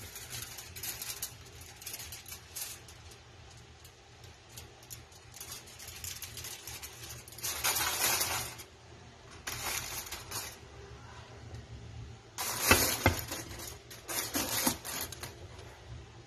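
Aluminium foil crinkling in several bursts as it is handled and pressed over a glass bowl, the loudest bursts with a few sharp clicks.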